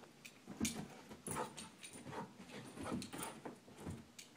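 Small dog playing on carpet, pouncing and scrambling with irregular soft thumps and clicks, and short sounds from the dog between them.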